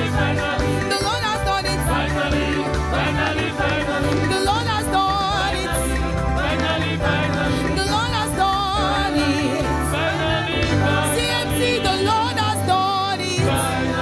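Upbeat gospel praise music with singing over a steady bass groove.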